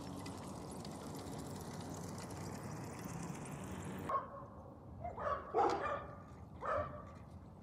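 A steady background hiss that cuts off about four seconds in, followed by about five short, pitched calls over the next three seconds.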